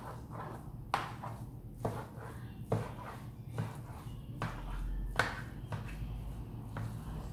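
Rice paddle mixing cooked rice in a baking tray, knocking and scraping against the tray about five times at uneven intervals.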